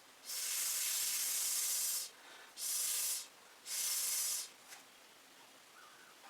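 Three bursts of air blown over wet acrylic paint to push it across the canvas, a steady hiss each time: a long one followed by two shorter ones.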